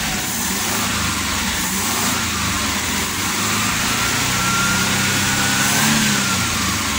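Suzuki F6A three-cylinder Multicab engine running on a freshly rebuilt carburetor while the accelerator is worked. Its pitch climbs from about four seconds in, peaks near six seconds, then falls back. The engine is running properly again after being a non-starter because of a faulty carburetor.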